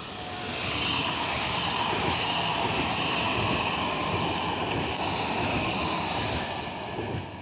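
Electric multiple unit passenger train passing close by at speed. The rumble of its wheels on the rails and a rushing hiss swell over the first second, hold steady as the cars go by, then fall away near the end.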